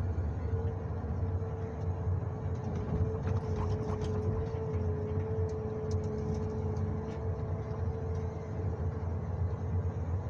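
John Deere 1910G forwarder running steadily, a low diesel drone with a steady high whine over it, heard from inside the cab. A few faint clicks come through.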